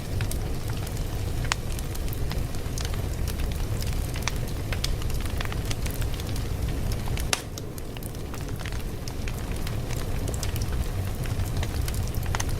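Fire crackling: a steady low rumble dotted with frequent sharp pops and snaps. One louder crack comes about seven seconds in, after which it goes briefly quieter.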